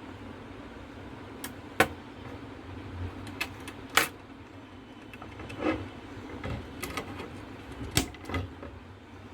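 Scattered sharp clicks and taps of hardware being handled as an Intel Core i5-6500 processor is fitted into an LGA 1151 motherboard socket, over a steady low hum.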